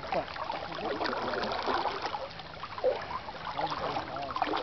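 River water swishing and sloshing steadily as someone wades, with faint distant voices over it.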